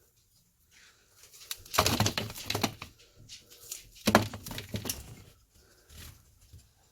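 Apple peeler working through a red delicious apple under hand pressure: two loud rasping, scraping bursts about two seconds apart, each roughly a second long, then a fainter one.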